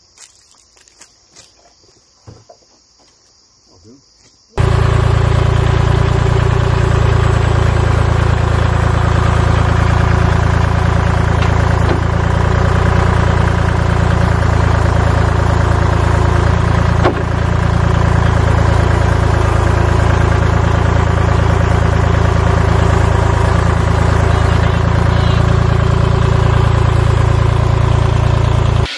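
A Kubota compact tractor's diesel engine running steadily and loudly, working a front loader. It comes in suddenly about four and a half seconds in, after a few faint knocks.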